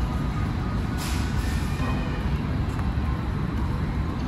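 Busy exhibition-hall ambience: a steady low rumble with faint distant voices.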